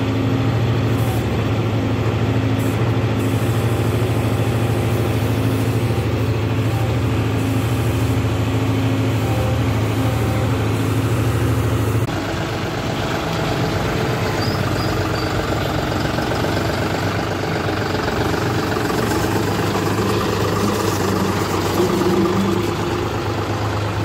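John Deere 5310 tractor's three-cylinder diesel engine running steadily. About halfway through the sound changes abruptly and turns a little quieter.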